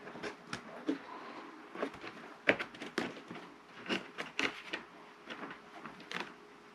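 Small plastic parts being handled and fitted onto a model plane's tail: irregular light clicks and taps, the sharpest about two and a half seconds in.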